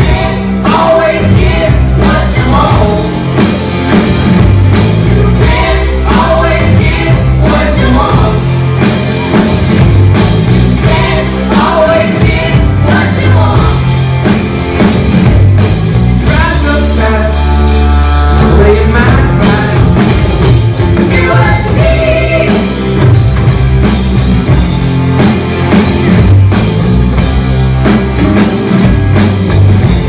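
A live rock band playing electric guitars, keyboards and drum kit, with a steady low bass and drum beat and a lead melody coming in short phrases.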